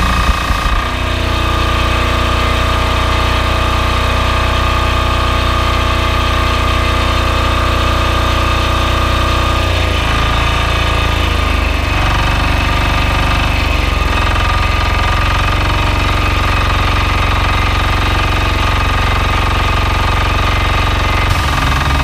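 Loncin 460 cc single-cylinder diesel engine running a belt-driven pressure washer pump at steady revs, its note dipping and shifting briefly about halfway through.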